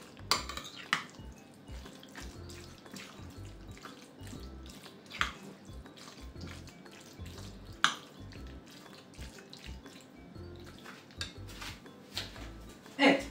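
Metal spoon stirring boiled pasta and grated cheese in a glass bowl: soft wet squelching, with sharp clinks of the spoon against the glass a few times.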